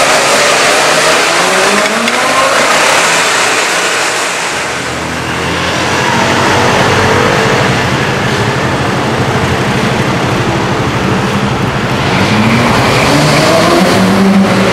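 Porsche Carrera GT's V10 engine revving up through several rising runs as the car accelerates away, with a steadier, lower engine drone in the middle and more rising revs near the end.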